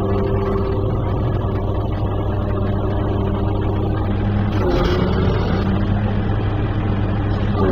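10-ton crane's engine running steadily under load, heard from inside the operator's cab, as the crane lifts a heavy stone block. Its note wavers briefly about two-thirds of the way in.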